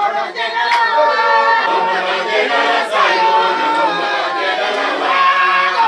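Congregation singing loudly together, with women's voices to the fore, sustaining and sliding between notes.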